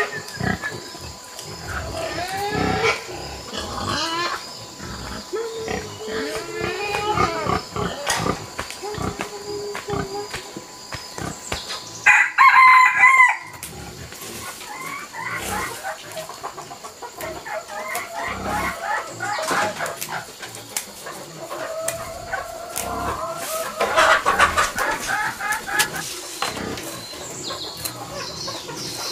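Chickens clucking and calling throughout, with a rooster crowing once, loudly, about twelve seconds in.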